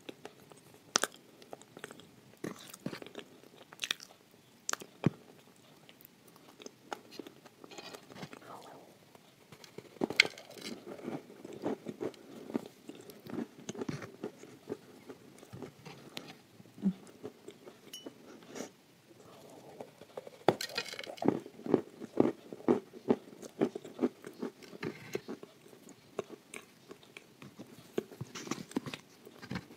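Close-miked biting and chewing of a slab of edible clay spread with chocolate paste: sharp crunches and chewing, coming in spells.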